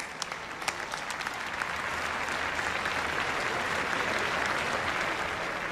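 Crowd applauding. A few scattered claps build over the first two seconds into steady, dense applause.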